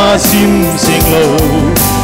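Small group of singers performing a Christian worship song over an instrumental accompaniment with a steady beat.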